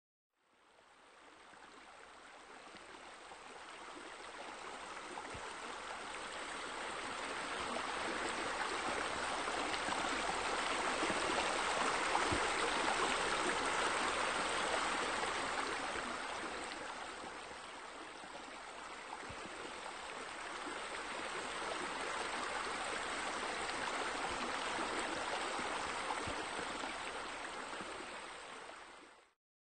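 Running water, like a stream or fountain, as a steady rush that fades in, grows louder for about twelve seconds, dips briefly, swells again and then stops abruptly near the end.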